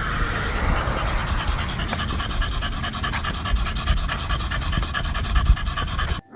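A dog panting steadily and rapidly, which stops abruptly near the end.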